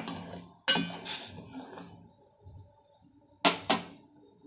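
A spoon stirring noodles in milk in a steel pot, clinking against the pot: a few sharp clinks in the first second or so, then two more after a quiet stretch of about two seconds.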